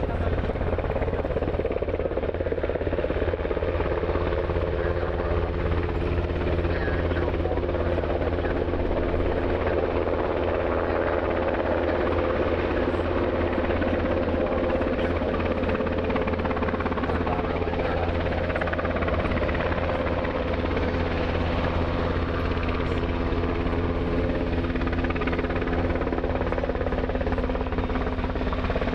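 Piston aircraft engines droning steadily, several steady tones layered over the noise of the running engines and propellers.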